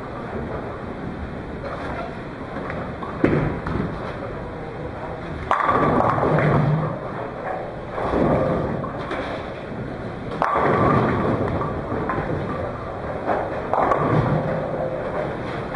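Bowling alley: balls rumbling down wooden lanes, with several loud clatters of pins being knocked down, one of them a strike.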